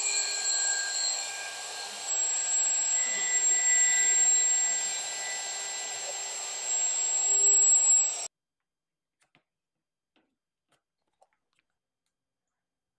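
Power tool running with a steady high whine, louder for a few seconds in the middle and again just before it stops. It cuts off abruptly about eight seconds in, leaving near silence with a few faint ticks.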